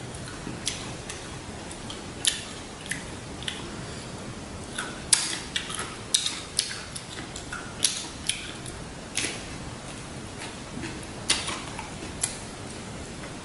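Eating sounds: irregular sharp clicks, smacks and crinkles from handling and chewing a lettuce wrap with shrimp and pork, over a steady hiss.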